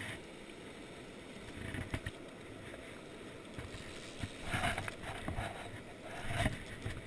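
Steady rush of a fast river running over rapids, with brief bursts of close rustle and handling noise about two seconds in, near the middle and near the end as the angler works the fly line.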